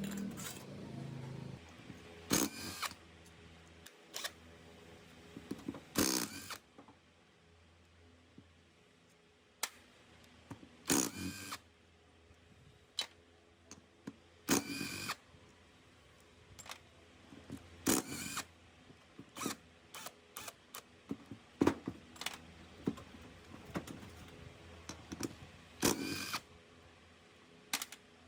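Short bursts of a handheld power tool, each about half a second, starting and stopping irregularly every few seconds, with small clicks between them.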